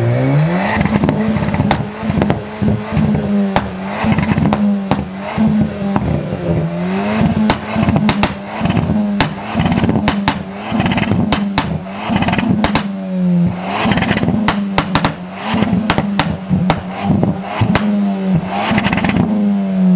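Car engine revved hard and held at high revs, the pitch repeatedly dipping and climbing back, with many sharp cracks and pops throughout.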